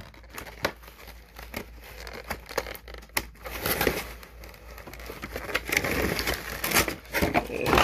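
Clear plastic packaging, a blister tray and bagged figure parts, crinkling and clicking as it is handled. The crinkling becomes denser and more continuous from about halfway through.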